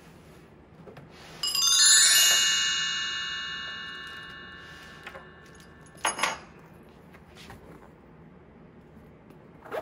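A chime sound effect: a quick run of many bright bell-like tones about a second and a half in, ringing on and fading out over a few seconds. Two short knocks follow about six seconds in.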